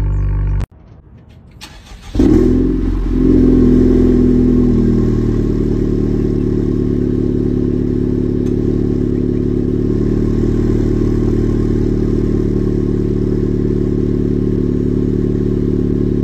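Honda Civic Type R FK8's turbocharged 2.0-litre four-cylinder cold-starting through its exhaust: a moment of quiet, then the engine catches about two seconds in, flares up to a high idle for a few seconds and settles into a steady fast cold idle.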